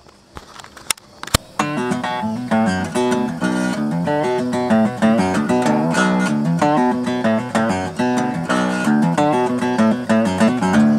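Acoustic guitar played in a steady run of picked notes, starting about a second and a half in after a couple of sharp clicks.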